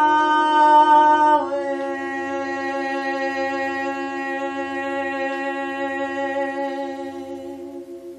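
A woman's voice singing long held, overtone-rich notes, stepping down in pitch once about a second and a half in and fading near the end. Beneath it a singing bowl rings steadily with a slow pulsing beat.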